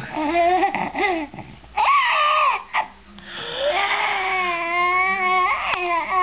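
Baby vocalizing: a few short coos and squeals, then a long drawn-out held note from a little past halfway.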